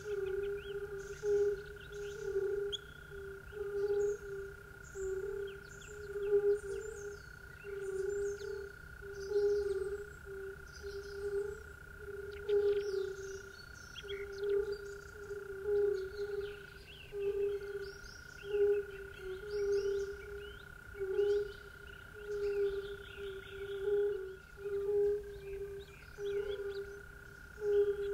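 A chorus of frogs calling, a low call pulsing about once a second, over a steady high-pitched drone and scattered quick high chirps.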